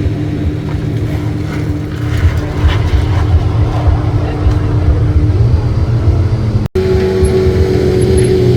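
Supercar engine running at steady revs with a deep rumble and a held note. There is an abrupt cut about two-thirds of the way in, after which another engine runs at a slightly higher steady note.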